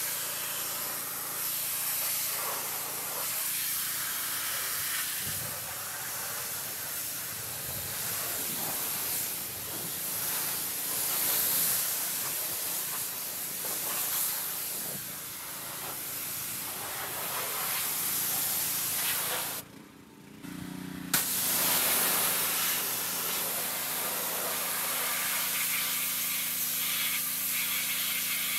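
Pressure washer spraying in a steady hiss over the hum of its pump. The spray stops for about a second and a half around twenty seconds in, then starts again with a sharp click.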